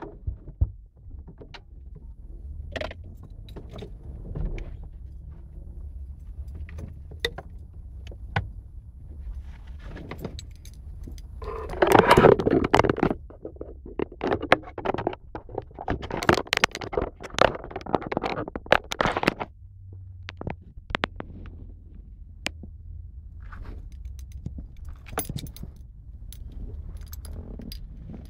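Irregular plastic clicks, rattles and knocks as the camera phone is handled and taken off its suction-cup mount, loudest in a burst of rustling about twelve seconds in, over a low steady rumble.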